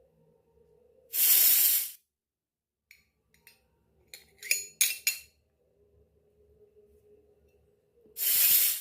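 A short hiss lasting under a second, then a quick run of small metallic clinks from miniature steel kitchenware, then a second short hiss near the end.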